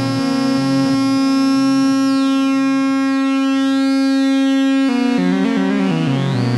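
Behringer TD-3-MO, a TB-303-style analogue bass synth, holding one sustained note for about five seconds while a sweep rises and falls through its upper tones. Near the end it switches to a quick run of changing arpeggiated notes.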